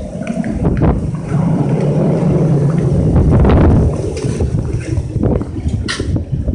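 Typhoon wind buffeting the microphone: a heavy low rumble that swells about a second and a half in and eases near four seconds, with a few sharp clicks.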